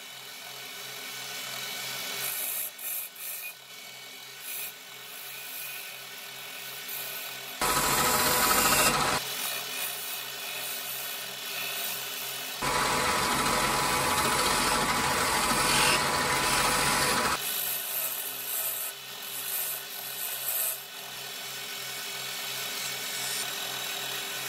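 Wood lathe running with a steady hum while a hand-held turning tool cuts the spinning wooden piece: light, broken scraping, then two louder spells of cutting, a short one about eight seconds in and a longer one of several seconds from about thirteen seconds.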